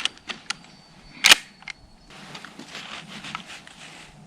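A few sharp clicks, one loud click about a second in, then a soft, steady rustling.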